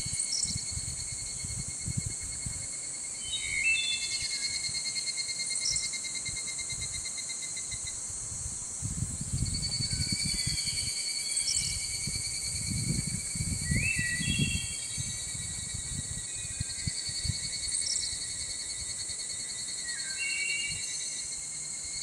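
Outdoor insect chorus: a steady high-pitched trilling from insects, with short bird chirps every few seconds. A low, gusty rumble of wind on the microphone swells around the middle.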